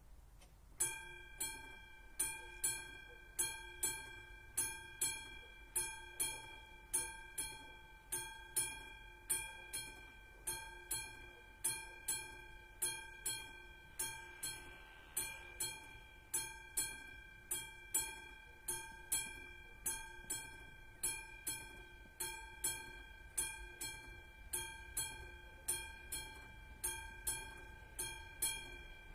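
The classic mechanical bell of an AŽD 71 level-crossing signal starts striking about a second in and keeps ringing at a steady pace of about three strokes every two seconds, each stroke ringing on and fading. This is the crossing's warning that a train is approaching.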